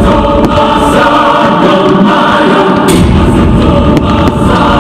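Choral music with held sung chords, played loud, with a few sharp bangs of fireworks going off over it.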